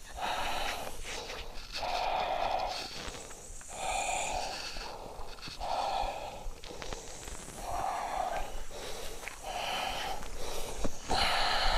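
A person breathing hard in loud, rough breaths, about eight of them, each under a second long and coming every one to two seconds.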